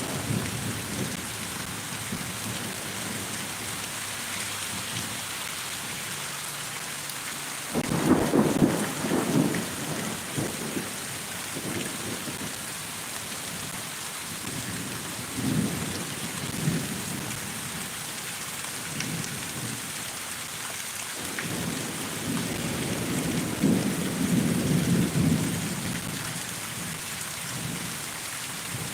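Steady rain during a thunderstorm, with thunder rumbling over it several times. The loudest peal comes on suddenly about eight seconds in, followed by weaker rumbles and a longer roll near the end.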